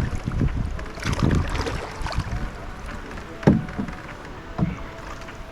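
Water sloshing and splashing around a plastic kayak out on the water, with irregular rumbling and a few knocks against the hull. The loudest knock comes about three and a half seconds in, and a smaller one about a second later.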